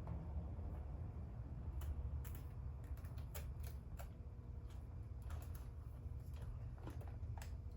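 Scattered light clicks and taps of hands handling a robot dog's plastic body while repositioning a fur cover on it, over a steady low hum.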